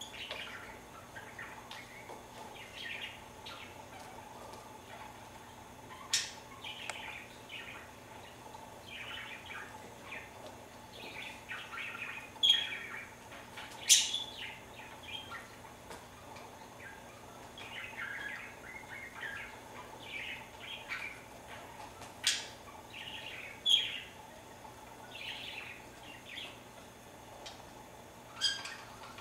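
Kitten scuffling with a plush toy on a laminate floor: irregular scratchy scrabbling of claws and fabric, with a few sharp clicks of claws or the toy striking the hard floor.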